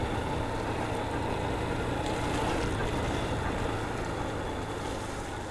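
Motorcycle running at low speed over wet cobblestones in heavy rain: a steady low engine note under a hiss of tyres and rain, fading out near the end.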